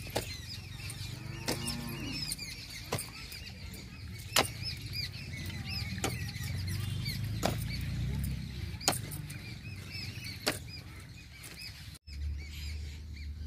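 Hand hoe chopping into dry, clumpy soil: sharp knocks a second or two apart. Many small birds chirp continuously behind it. Both stop abruptly near the end.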